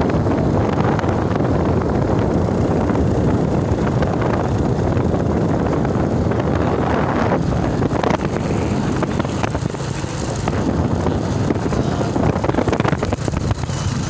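Wind buffeting the microphone over the steady low rumble of a moving vehicle.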